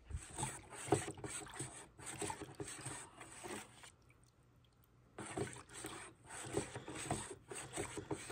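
Wooden stir stick stirring silicone into paint thinner in a plastic mixing bucket: irregular swishing strokes of the liquid and the stick scraping the bucket, with a pause of about a second midway.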